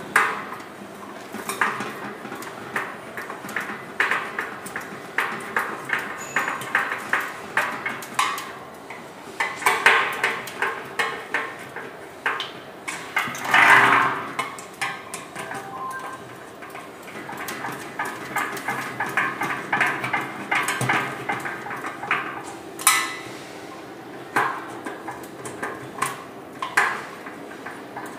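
Screwdriver tightening the screws that join the upper and lower halves of a small cement mixer's sheet-steel drum: repeated metallic clicks, clinks and taps against the drum, with a louder knock about halfway through. The screws are being driven fully tight so the drum seam won't leak water.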